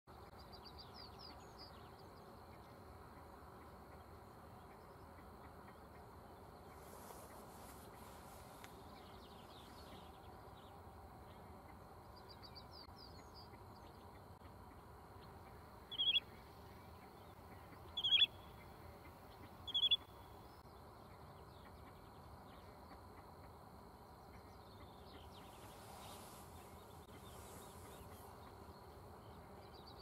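Pond ambience: a faint, steady high insect buzz with short bursts of quick ticking, and three short, loud bird calls about two seconds apart a little past halfway.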